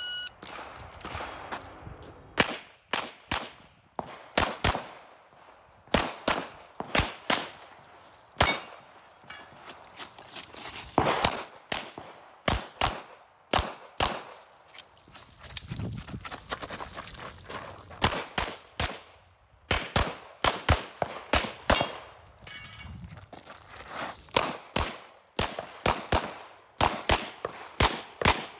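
Electronic shot timer start beep, then a gun fired in quick strings during a timed practical-shooting stage: dozens of sharp shots, many in rapid pairs, with short pauses between groups.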